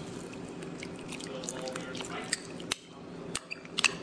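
Sauce simmering in a wok with a steady sizzle, then a spoon clinking against a glass bowl several times in the second half as cornstarch slurry is scraped into the pan.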